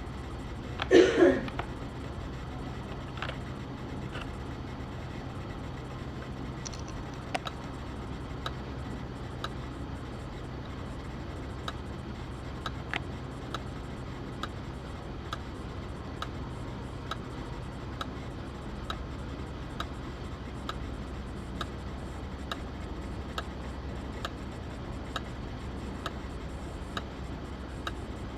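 External hard disk drive making an abnormal noise: regular sharp clicks a little more than once a second over a steady low hum, in a drive the PC no longer recognises. A brief louder noise comes about a second in.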